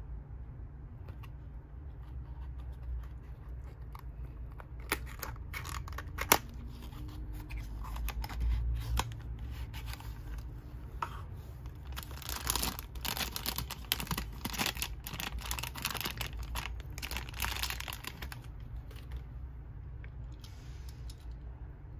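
A small cardboard toy-car box being handled and opened by hand: scratching and rustling of the card with scattered clicks and one sharp click about six seconds in. Then a longer stretch of denser rustling as the die-cast car is worked out of the box.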